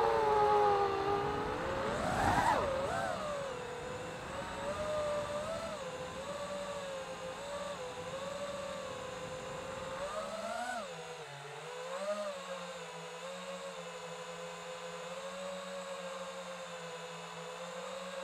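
FPV quadcopter's electric motors whining, the pitch bending up and down with throttle, with a loud swell and rush of air about two seconds in. From about ten seconds in, as it sets down, it settles into a steadier, lower whine.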